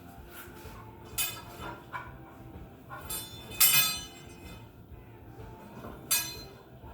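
Roller rods under a heavy lathe being shifted by hand, clinking three times with a short metallic ring, the loudest about halfway through.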